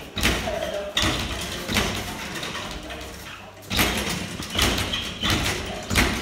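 Boxing gloves thudding as punches land during sparring: three quick hits in the first two seconds, then a pause, then four more spaced a little under a second apart.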